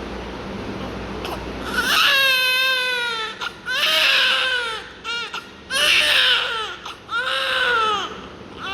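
A steady low hum, then about two seconds in a newborn baby starts crying: about five loud wails, the first the longest, each rising and then falling in pitch.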